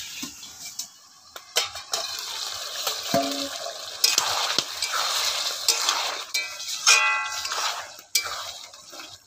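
Chicken pieces sizzling in a hot iron kadai as a metal spatula stirs and scrapes them, with sharp clicks of metal on the pan and a ringing clank about three seconds in. This is the kosha stage, the meat fried down in oil and spices.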